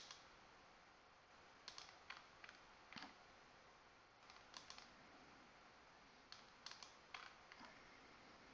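Faint computer mouse clicks over near silence: about a dozen scattered single clicks, some in quick pairs, as spline points are placed one after another.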